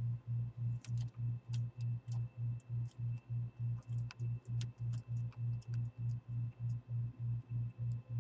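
A loud low hum pulsing evenly about three and a half times a second, with scattered small clicks and taps from a small screwdriver working on a laptop's screen bezel.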